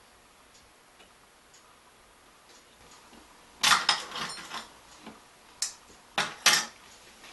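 Hard parts of a partly dismantled electronic drum module being handled: a clatter of clicks and light knocks about three and a half seconds in, then four sharp single clicks over the next two seconds.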